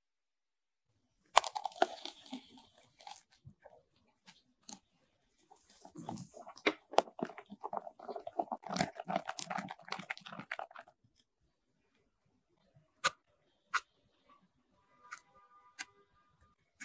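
Kitchen food-preparation handling sounds: a sharp click, then two stretches of dense, irregular crackling and crunching, the second lasting about five seconds. A few separate clicks and a short light clink follow near the end.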